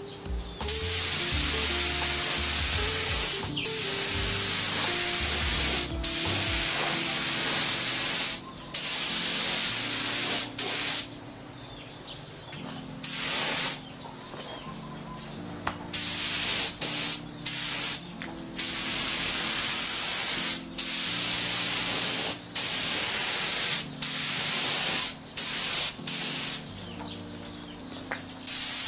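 Air-fed Iwata mini spray gun hissing as it sprays black metallic base coat onto a plastic scooter body panel. It goes in a string of trigger pulls of about one to three seconds each, every one cut off sharply.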